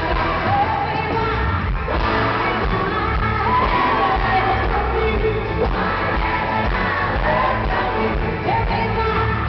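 A woman singing lead into a microphone over a live country band, recorded from the audience in a large arena hall.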